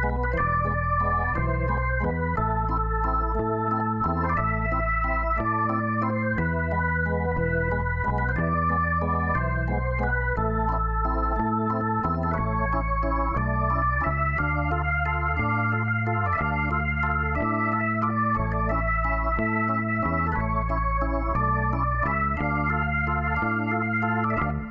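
Background music: sustained electronic organ-like chords over a deep bass line, the notes changing about once a second, ending abruptly at the very end.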